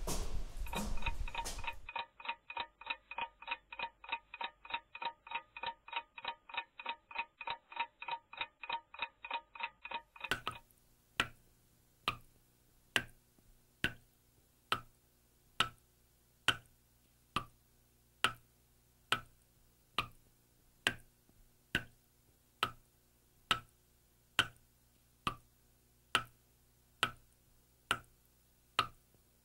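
Rapid, even ticking about four times a second for the first third, then a faucet dripping into a sink basin, each drop a sharp plink a little more than once a second, over a faint steady hum.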